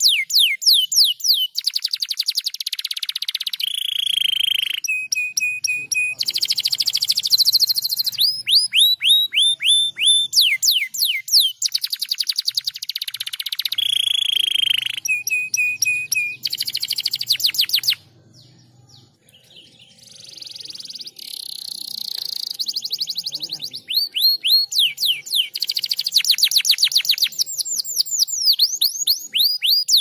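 Domestic canary singing a long, varied song of rapidly repeated phrases: quick falling whistled sweeps, fast rattling trills and short level whistles, with a brief break a little past the middle.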